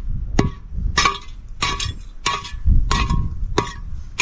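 A metal tool striking hard material again and again: sharp clinks about twice a second, each with a brief metallic ring.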